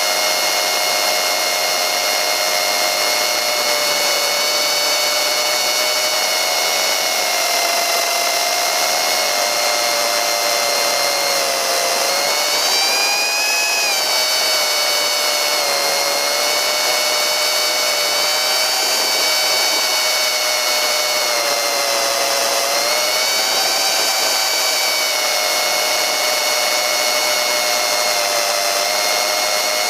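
Electric motor and pusher propeller of a tiny FPV model plane whining steadily, its pitch rising and falling with the throttle about halfway through and again later on.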